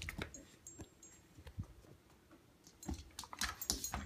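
A dog moving about on a hardwood floor beside a plush toy: a few faint clicks and taps, most of them near the end.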